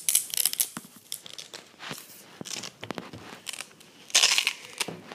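Plastic bag crinkling and rustling as it is handled, with scattered light clicks and taps. The loudest rustle comes about four seconds in.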